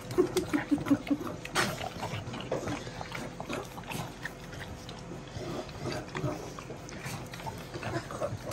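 Dog licking and slurping a frozen dog ice-cream treat from a cup held in a hand: a run of quick wet licks, about five a second in the first second, then irregular licking and snuffling.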